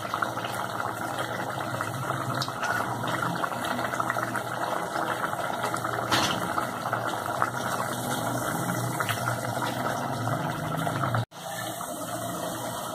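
Pot of beef curry with onions and tomatoes boiling hard over a high gas flame: a steady bubbling and sputtering as its water is being cooked off.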